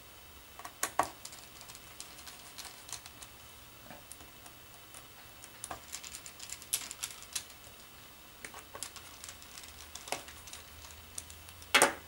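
Light, irregular clicks and ticks of a small screwdriver driving the laptop's bottom-cover screws back in, with a sharper knock near the end.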